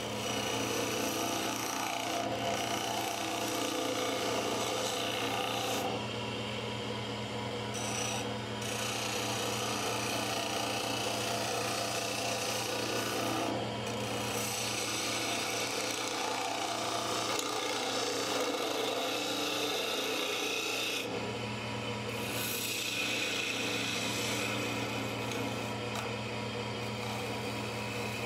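A turning gouge cutting green arbutus on a running wood lathe: a continuous scraping, shaving sound over the steady hum of the lathe motor. The cutting eases off briefly a few times as the tool is lifted or moved.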